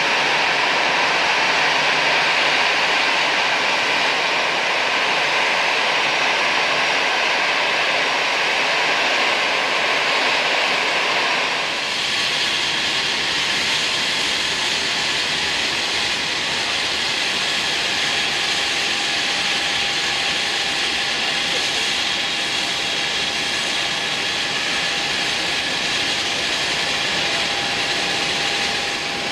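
Airbus A320-family jet engines running at low thrust as the airliners taxi: a steady rushing hiss with a high whine. About twelve seconds in the sound changes abruptly to a second engine sound with a different steady whine, and a lower steady tone comes in a few seconds later.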